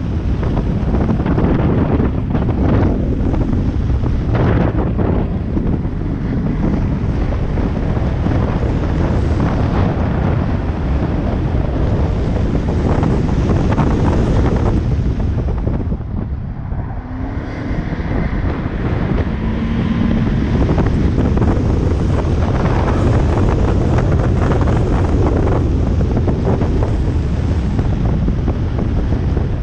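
Subaru WRX's turbocharged flat-four engine and tyres under hard driving, mixed with heavy wind buffeting on the microphone. Around the middle the noise briefly dips, then builds again.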